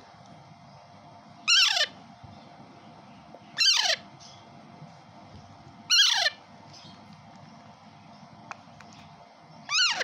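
Kashmiri raw (Alexandrine parakeet) chick giving four loud, harsh begging squawks, each short and falling in pitch and roughly two seconds apart, as it is hand-fed formula from a syringe.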